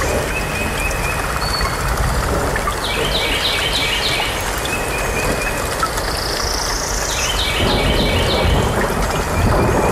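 Short clusters of high, quick chirps, like small birds calling, repeating every second or two over a steady low rumble of outdoor background noise, with one rising high sweep about two-thirds of the way through.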